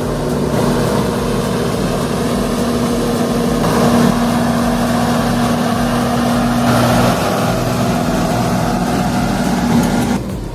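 A farm truck's engine running steadily under heavy load, its noise growing louder about a third of the way in. The sound drops off sharply near the end.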